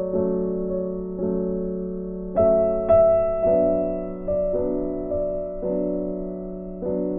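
Background music: slow, soft piano chords, a new chord struck about once a second and each one fading out.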